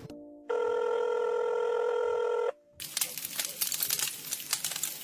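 A steady electronic tone held at one pitch for about two seconds, cutting off abruptly. After a short gap comes a crackling hiss with many small clicks.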